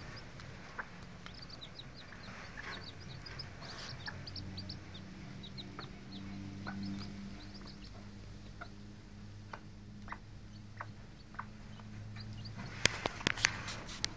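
Bantam broody hen clucking low and steadily while her small chicks peep in short high chirps. The peeps are thick in the first half and thin out later, with scattered light taps of pecking at the food. A few sharp knocks come near the end.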